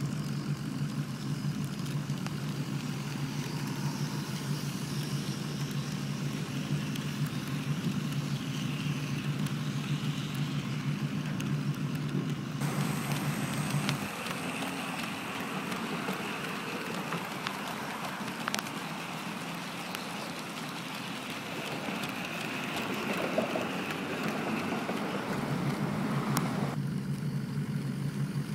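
Märklin HO-scale model electric trains running on track: a steady low electric motor hum and rumble over a hiss of outdoor noise. The sound changes abruptly twice.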